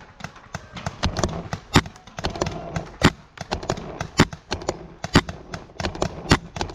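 Paintball markers firing during a firefight: a string of sharp, irregular pops, two or three a second, the loudest about once a second.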